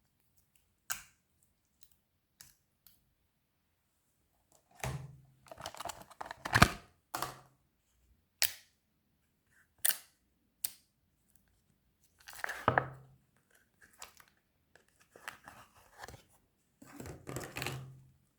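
Clear slime being handled and squished: three bouts of sticky crackling, with single sharp clicks and pops in between.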